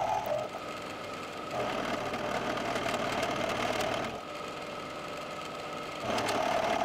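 Milling machine cutting aluminium plate with an indexable end mill: a steady whirring cutting noise. It drops quieter about half a second in and again about four seconds in, and comes back each time.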